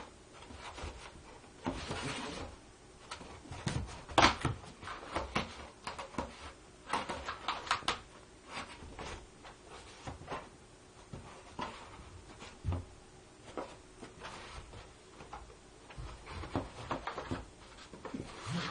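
A cat scrabbling at and squeezing into a flat cardboard box, with irregular scrapes, rustles and knocks from the box. The loudest knock comes about four seconds in.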